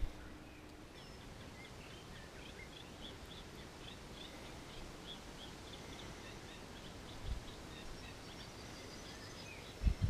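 Small birds chirping in quick runs of short high notes over a faint steady outdoor background, with a brief low bump about seven seconds in and another near the end.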